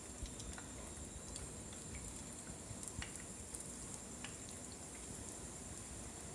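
Oat-coated chicken pieces deep-frying in oil, a faint steady sizzle with scattered small pops and crackles.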